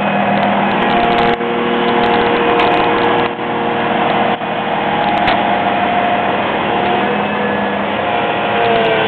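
Volvo EC700BLC tracked excavator's diesel engine running steadily under load as the machine tracks backwards down off a low-loader deck, a continuous engine drone with a few steady tones.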